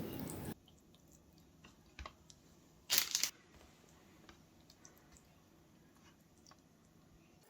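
Food-prep handling sounds: a steady rushing noise stops about half a second in, then light clicks and a brief crinkling crunch about three seconds in.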